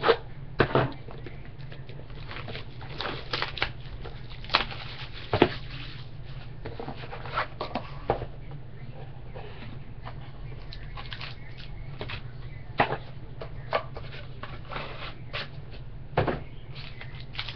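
Trading-card packaging being opened and cards handled: scattered crinkles, taps and clicks at irregular times over a steady low hum.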